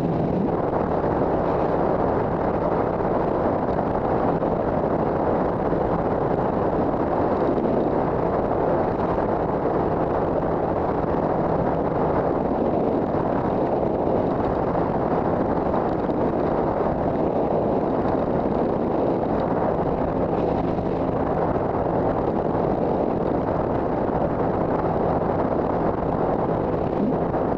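Steady wind rush on a helmet-mounted microphone as a 2007 Triumph America cruiser rides at a constant speed. The 865cc parallel-twin engine drones evenly underneath the wind.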